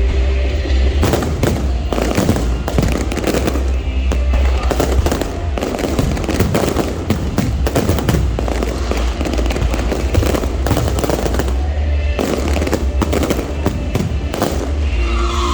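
Aerial fireworks going off in a dense, unbroken run of bangs and crackling bursts.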